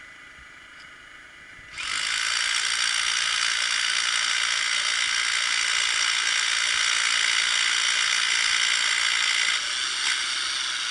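Corded rotary hammer drill boring into the rock face, starting about two seconds in and running steadily with a fast hammering rattle, easing slightly near the end. It is drilling a bolt hole for a new climbing route.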